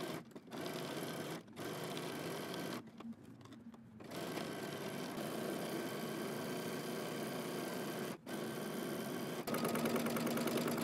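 Domestic sewing machine stitching a seam through knit fabric in stretches, stopping briefly several times with a pause of about a second around three seconds in, and running louder near the end.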